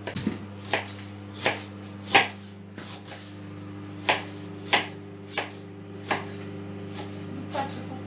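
Kitchen knife shredding a head of white cabbage on a plastic cutting board: about a dozen sharp cuts, irregularly spaced, over a steady low hum.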